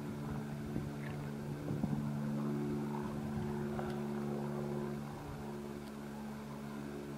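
Steady engine drone at one pitch, a little quieter about five seconds in.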